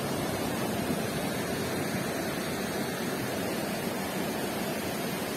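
River water rushing over rocks through shallow rapids, a steady hiss of flowing water.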